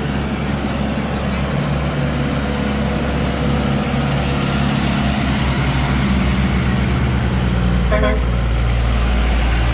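Truck diesel engines coming round a curve: a rigid cargo truck and then a tractor-trailer pass close by, a low steady rumble growing louder as they approach. A short horn toot about eight seconds in.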